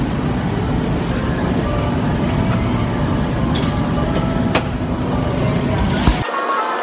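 Loud, steady low rumbling background noise with a few faint clicks, cut off abruptly near the end by music with light chiming.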